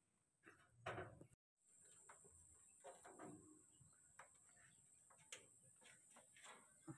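Near silence: faint outdoor ambience with scattered light ticks and clicks and a faint steady high whine, broken by a brief dropout to total silence about a second and a half in.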